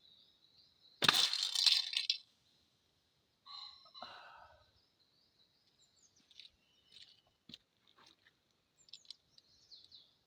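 A broadhead arrow from a recurve bow hits a loose bicycle helmet with a loud, sharp crack about a second in, and the helmet clatters for about a second. A softer clatter follows a couple of seconds later. Birds chirp in the background.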